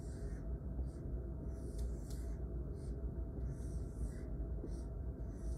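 Dry-erase marker drawing on a whiteboard: several short strokes one after another, over a steady low hum.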